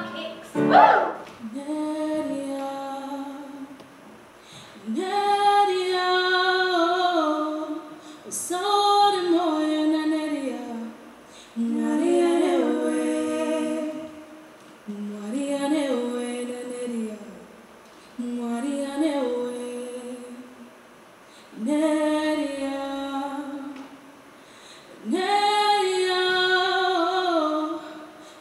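A brief loud sound about a second in, then women's voices singing slow phrases of held notes, each a few seconds long with short pauses between.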